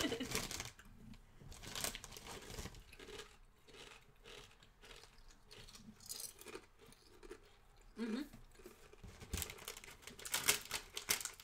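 Potato chips crunching as two people chew them, with a plastic snack bag crinkling louder about ten seconds in.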